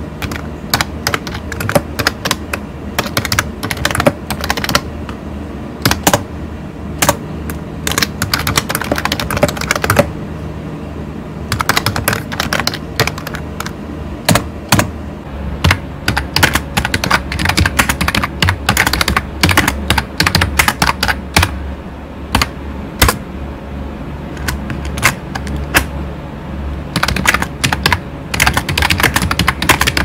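Typing on membrane keyboards: a run of quick key clicks on a pink steampunk-style keyboard with round typewriter-style keycaps, then, after a short break about ten seconds in, typing on a black Delux membrane keyboard. The pink keyboard is rubber-dome membrane, not mechanical, and its owner says it squeaks a little on backspace and enter.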